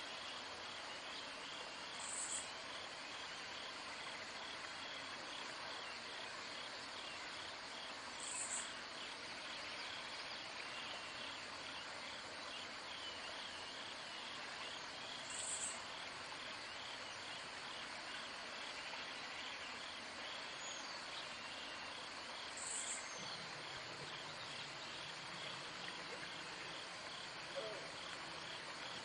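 Outdoor insect chorus: a steady pulsing trill, with a short high chirp repeating four times, about every six to seven seconds.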